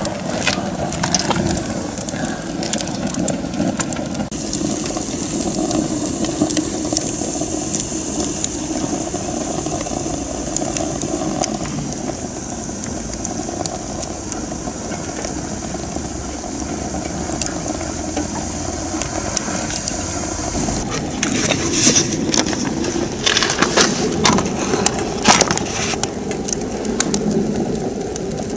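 Homemade rocket stove burning wood under a strong draft: a steady rushing of the fire with light crackling, then a run of sharper crackles and pops about three quarters of the way through.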